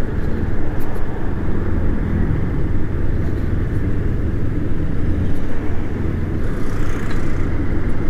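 Steady low rumble of vehicle travel along a city street, with motor traffic around; a brief hiss rises and fades near the end.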